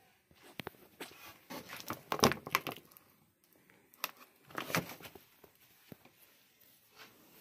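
Woven plastic sacks rustling and crinkling in irregular bursts as they are brushed and pushed against, loudest about two seconds in and again near five seconds.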